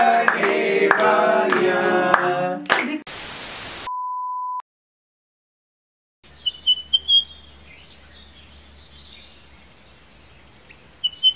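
A group of people singing with hand-clapping, which cuts off about two and a half seconds in. A short burst of static hiss and a steady electronic beep follow. After a moment of silence there is a faint outdoor background with two short runs of bird chirping.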